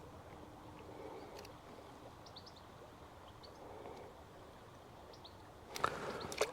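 Faint outdoor ambience: scattered short bird chirps over a low steady hiss, with a couple of brief rustling knocks near the end.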